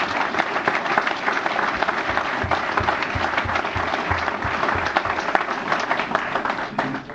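Audience applauding steadily, dying away near the end, with a short run of dull low thumps in the middle.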